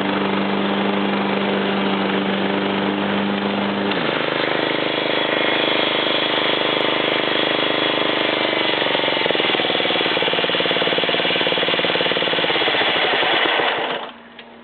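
John Deere JX85 self-propelled lawnmower's small engine running fast, then throttled down about four seconds in. It slows further and shuts off near the end.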